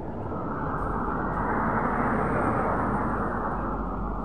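Road traffic: a vehicle passing close by, its rushing tyre and engine noise swelling to a peak about two seconds in, then fading.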